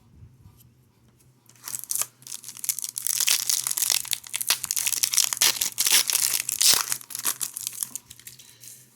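Foil wrapper of a hockey card pack being torn open and crinkled, a dense crackling that starts about two seconds in and stops about a second before the end.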